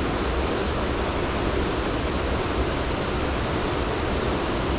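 Steady rush of creek water cascading into a pool.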